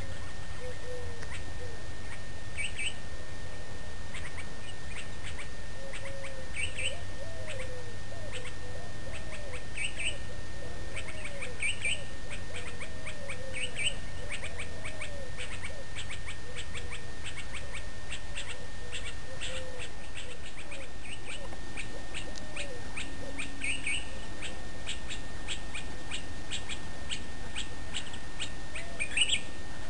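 Wild birds calling outdoors at sunrise: short high chirps recurring every second or so, mixed with lower swooping calls, over a steady low rumble.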